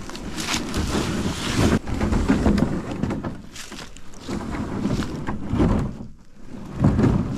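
Canoe hull scraping and grinding over rocks and dry leaves as it is pushed along the ground, in several irregular shoves with short pauses.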